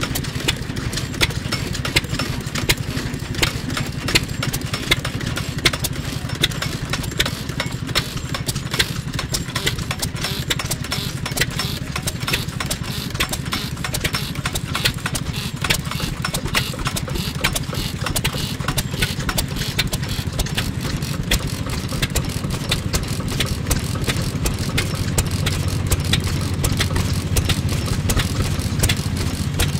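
FIRST ENGINE Type S.H 3 hp single-cylinder, hopper-cooled stationary oil engine running steadily with regular sharp exhaust beats over a low rumble, a little louder near the end.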